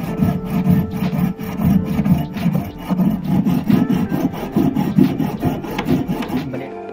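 Jeweller's piercing saw cutting through a brass hex nut, the fine blade rasping in rapid, repeated back-and-forth strokes.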